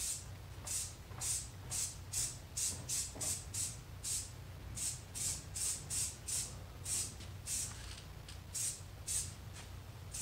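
An aerosol can of Loctite spray adhesive hissing in short, quick spurts, about two to three a second, as it is dabbed over a stencil. A steady low hum runs underneath.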